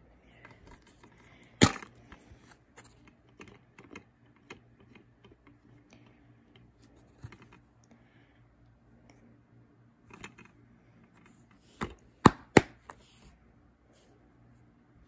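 Plastic DVD case being handled: a sharp click as it opens about two seconds in, scattered small clicks and rustles as it is turned in the hand, and three sharp snaps as it is closed, a little before the end.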